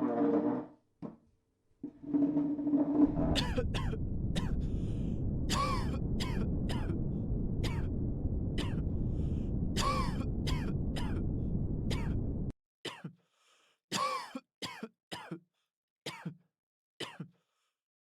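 Background noise for exam practice: a string of short coughs, more than twenty, some close together, over a steady low rumble that stops suddenly a little after halfway. Bursts of throat-clearing come just before the rumble starts.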